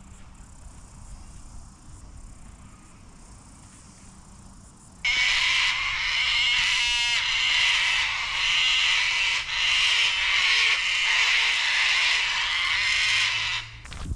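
Quiet woodland background, then about five seconds in a loud, steady, high buzzing chorus of cicadas starts abruptly, with a brief rapid rattle in it about two seconds later. The chorus stops suddenly just before the end.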